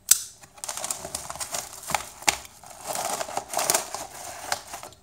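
Yellow padded paper mailer being slit open with a folding pocket knife: paper ripping and crinkling with many small clicks and crackles, after one sharp click at the very start.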